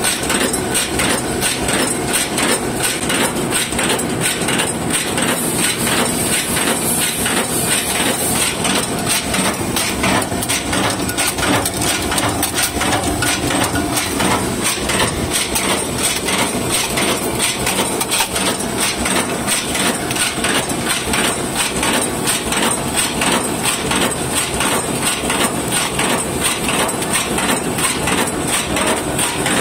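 Multi-station cold-heading machine running at speed, forming aluminium blind rivets: a fast, regular metallic clatter of forming strokes over a steady high hiss.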